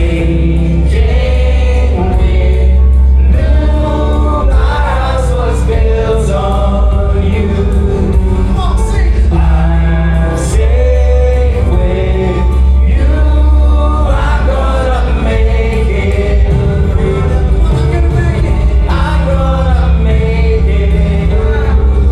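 Gospel worship song: a choir and lead singers with a band, strong steady bass underneath.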